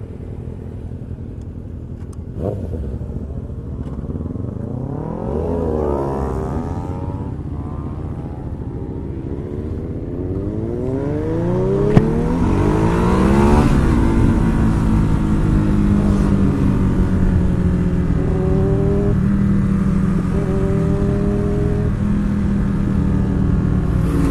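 Ducati Hyperstrada's 821cc twin-cylinder engine pulling away and accelerating, its pitch climbing and dropping back through upshifts twice, then running at a steadier, louder cruising note with small changes in throttle. A single sharp click sounds midway.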